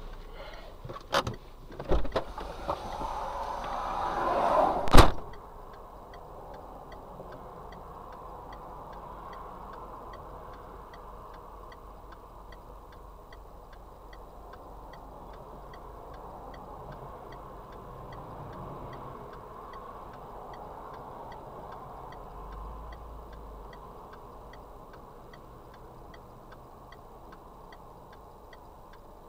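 Heard from inside a car: a couple of knocks, a rising rush of noise, then a loud bang about five seconds in, the impact of a collision that the title puts down to a truck's failed brakes. After it the cabin is left with a steady low hum and the indicator relay ticking evenly, about one and a half ticks a second.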